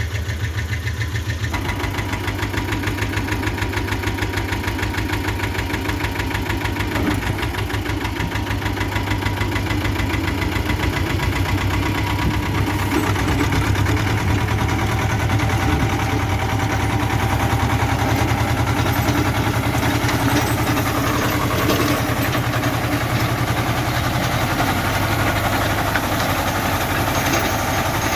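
Tractor diesel engine running steadily while a rotary tiller churns through overgrown peas. The sound thickens into a fuller, rattling note about a second and a half in, as the tiller takes up its work.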